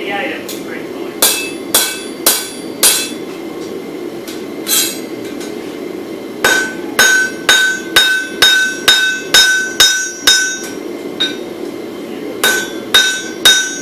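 Hand hammer striking a red-hot bar of wootz steel on an anvil, in runs of blows about two a second, each with a brief metallic ring. There is a short run near the start, a long run in the middle and another near the end, over a steady low rush.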